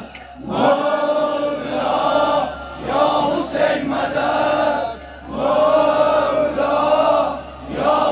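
A large crowd of men chanting a mourning lament for Hussein in unison, three long held phrases with short breaths between them.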